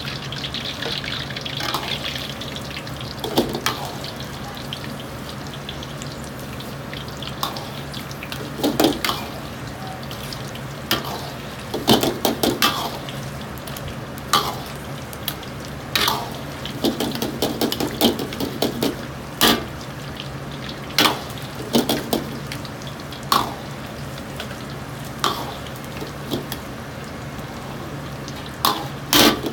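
Chicken pieces deep-frying in a wok of hot oil, a steady bubbling hiss, while a metal ladle stirs and ladles the oil, scraping and clanking against the iron wok many times; the loudest clanks come near the end. A steady low hum runs underneath.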